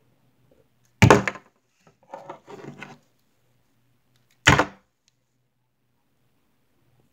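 Two loud knocks about three and a half seconds apart, with a short rattling clatter between them: plastic action figures banging against a cardboard box.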